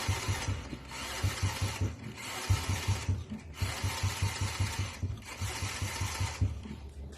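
Honda Wave 100R's single-cylinder four-stroke engine running after being started with a newly fitted starter chain, a rhythmic low putter of several beats a second. A hiss comes and goes over it in several long stretches.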